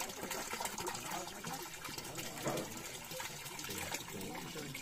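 Steady rush of running water, with faint voices talking in the background.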